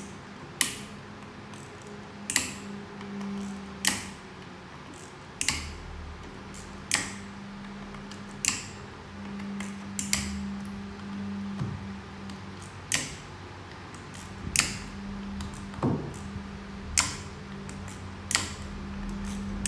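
Sharp clicks of metal parts being handled on a Mercedes 722.9 7G-Tronic transmission valve body during disassembly, one about every second and a half, over a steady low hum.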